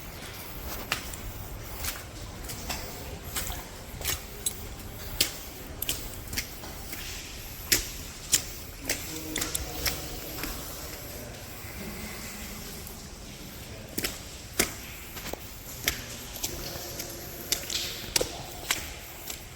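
Footsteps squelching through mud: an irregular series of wet steps and sharp clicks, roughly one every half second to a second.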